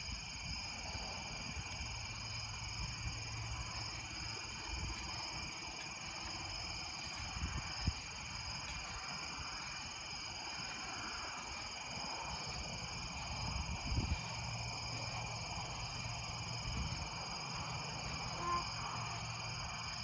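Steady chorus of night insects, several unbroken high-pitched trills at once, over a low rumble with a few brief low thumps about 8 and 14 seconds in.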